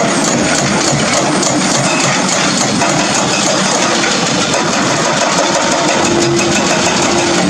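Hydraulic breakers on two Doosan excavators (DX225LC and DX520LC) hammering limestone: a rapid, steady run of blows over the excavators' diesel engines running.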